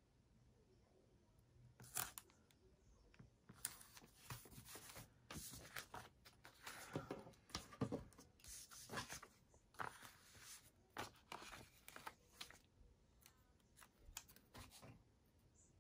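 Faint paper handling: planner stickers being peeled from their backing and sticker sheets shuffled on the desk, a run of short, irregular rustles and rips starting about two seconds in.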